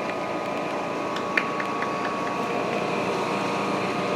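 Outdoor heat pump condensing unit running: a steady fan rush with a few steady humming tones from the machinery, and a few light clicks about a second and a half in.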